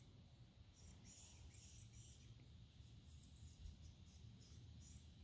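Near silence: faint outdoor ambience with a light, repeated high-pitched chirping of wildlife.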